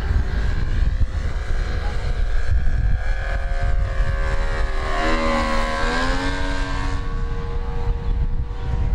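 Petrol engine and propeller of a giant-scale radio-controlled Piper J-3 Cub model making a low pass. The engine drone is loudest about five to six seconds in, then drops in pitch as the plane flies away. A heavy low rumble of wind buffets the microphone throughout.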